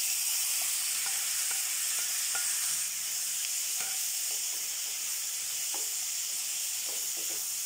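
Chopped tomatoes, onion, ginger and garlic sizzling in hot butter in a kadai, with a steady hiss, while a wooden spatula stirs them with faint ticks and scrapes.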